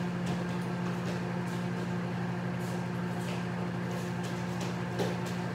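Steady electric hum of a kitchen appliance running, with a light knock about five seconds in.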